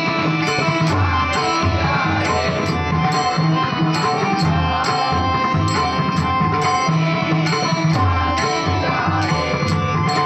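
Marathi bhajan accompaniment to a slow-tempo abhang: a harmonium holding steady notes, a pakhawaj and tabla beating a slow rhythm, and small hand cymbals (taal) clashing about twice a second.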